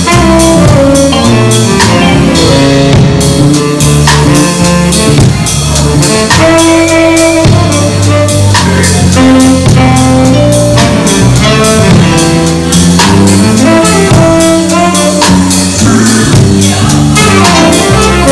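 Live jazz combo playing an improvised groove: tenor saxophone playing a melodic line over drum kit, electric bass and keyboard.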